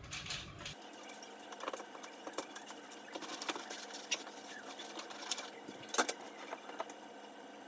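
Light plastic clicks and rattles as incubator parts are handled and fitted together, likely the quail racks going into the egg turners, with a sharper double tap about six seconds in.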